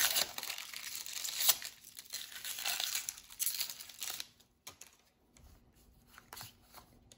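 Foil wrapper of a Pokémon card booster pack crinkling and tearing as it is ripped open, for about the first four seconds. Then only faint soft ticks as the pulled cards are fanned through by hand.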